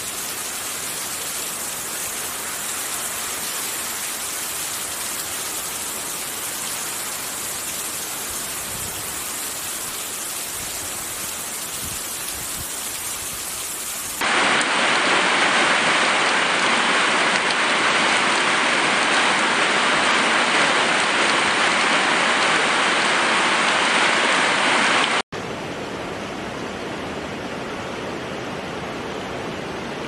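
Heavy rain falling on foliage, a steady hiss. About halfway through it cuts to louder water pouring from a roof gutter spout. Near the end it cuts again to a small stream running over mossy rocks.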